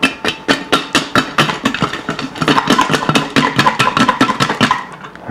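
Chicken wings being shaken in sauce inside a lidded metal saucepan: a fast, steady clatter of the pot and lid knocking, several knocks a second, stopping shortly before the end.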